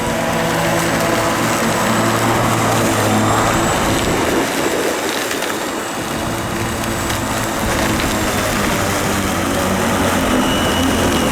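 Greenworks 14-inch corded electric lawn mower, its 9-amp motor and spinning blade running steadily while cutting grass, a steady hum with a hiss over it.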